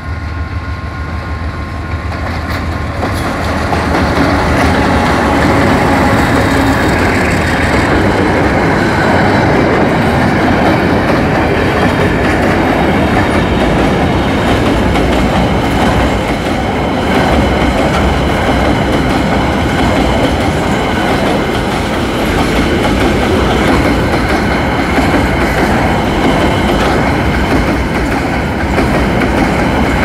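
ALCo RSD16 diesel-electric locomotive drawing near and passing, the end of a horn blast dying away in the first couple of seconds and the sound swelling to full loudness about four seconds in. A long train of empty open-top freight wagons then rolls steadily by close at hand, wheels clattering over the rail joints.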